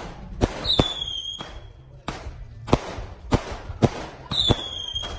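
Consumer firework cake (a 36-shot repeater) firing, its shells bursting as a string of sharp bangs, roughly one every half second to a second. Two high whistles, each sliding slightly down in pitch, sound about a second in and again near the end.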